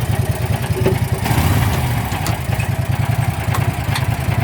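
Landmaster's small engine running steadily at a raised idle, set high to supply current for a jump start; it swells slightly louder about a second in.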